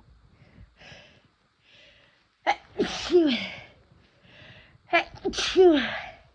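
A woman sneezing twice, set off by chhinkni sneezing snuff. Each big sneeze carries a falling vocal cry, the second coming about two and a half seconds after the first, with fainter breathy in-breaths leading up to them.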